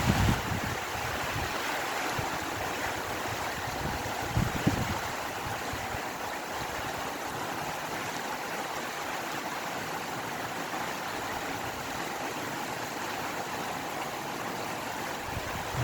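Steady rain falling, with wind, in an even hiss. Low gusts swell briefly at the start and again about four and a half seconds in.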